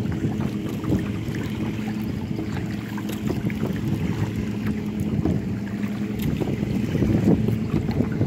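Wind buffeting the microphone on a kayak out on the lake, with small water splashes and drips from the paddle strokes.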